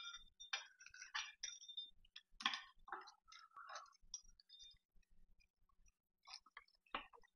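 Pizza cutter wheel rolling through a crisp broiled tostada chip, giving faint, irregular crunches and clicks, with a short lull about two-thirds of the way in.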